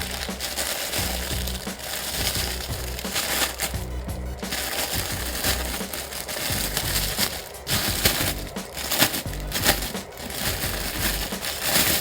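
Background music overlaid by crunching, crinkling noise with frequent sharp cracks.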